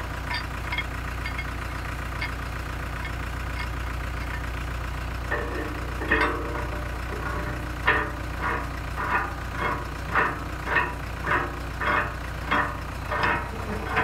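Short metallic clinks and squeaks, repeating about twice a second from about five seconds in, as a steel shackle pin is turned by hand through the shackle and bucket pin ears. An engine idles steadily underneath.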